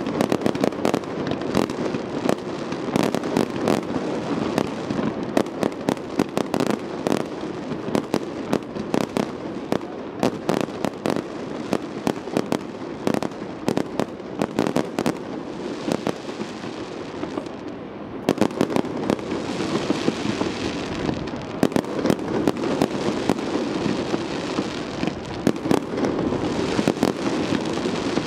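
Fireworks display: a rapid, unbroken barrage of aerial shell bursts and crackling stars, many sharp bangs a second. It thins out for a couple of seconds about two thirds of the way in, then builds again.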